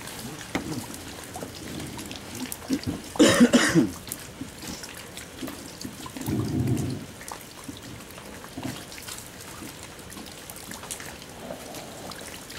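Light rain pattering with scattered small ticks. About three seconds in there is one short, loud, noisy burst, and a softer low muffled sound follows around six seconds in.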